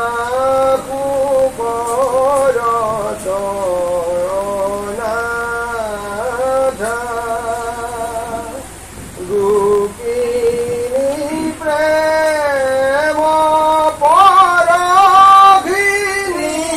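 Unaccompanied Assamese devotional chanting (naam): a singing voice in long, sliding melodic phrases, with a short break about nine seconds in.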